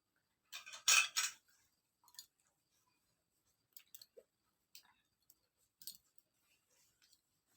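Hands massaging oil into a baby's skin and handling the child: a short burst of rustling and scraping about a second in, then scattered faint clicks.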